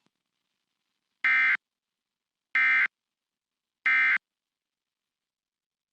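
Emergency Alert System end-of-message (EOM) signal: three short bursts of buzzy digital data tones, about a second and a quarter apart, marking the end of the alert.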